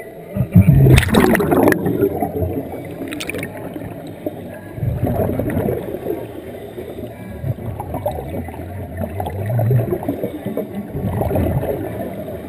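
Scuba regulator exhaust bubbles heard underwater, gurgling in surges every few seconds as divers exhale. There is a louder rushing burst about a second in.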